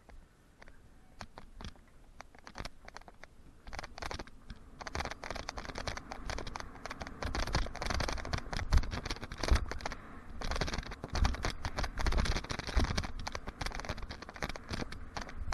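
Mountain bike riding a dirt track: tyres crunching over dirt and grit, with the bike rattling and clicking over the bumps and low thumps. It is sparse at first, then gets dense and louder from about four seconds in as speed builds.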